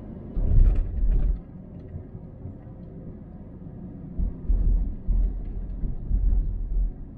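Car cabin noise while driving slowly along a city street: a steady low drone with heavy low rumbling surges, one about a third of a second in lasting about a second, and another from about four seconds in until near the end.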